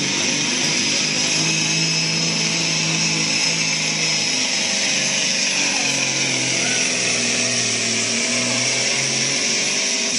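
Semi truck's diesel engine running flat out under heavy load as it pulls a weight sled. Its note drops in pitch about halfway through as the engine is dragged down.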